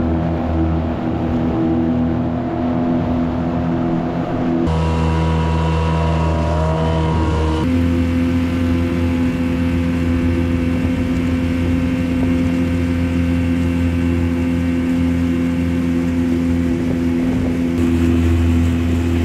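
Small outboard motor running steadily at full throttle, pushing a micro boat at planing speed, its pitch jumping abruptly a few times as shots change.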